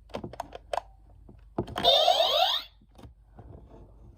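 Battery-powered toy laser gun: a few plastic clicks, then a burst of sweeping electronic tones about a second long.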